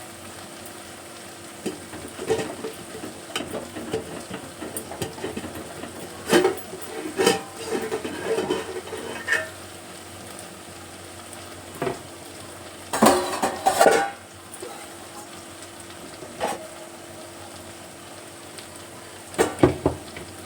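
A utensil stirring and scraping in a pan of frying spice masala over a low sizzle, with irregular clusters of clinks and knocks against the pan, the loudest about halfway and near the end. A steady low hum runs underneath.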